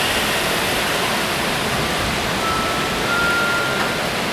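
Steady rushing noise on a wet station platform as a JR 105 series electric train starts to pull out, with a faint high tone about halfway through that steps up slightly in pitch.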